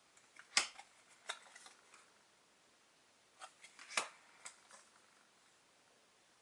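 Force Attax trading cards being handled by hand: a few short papery flicks and taps as cards are slid off the stack and laid against each other, the sharpest about half a second in and again about four seconds in.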